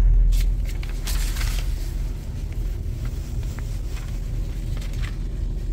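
Truck's diesel engine running with a steady low rumble, a little louder in the first two seconds, with a few faint clicks and knocks.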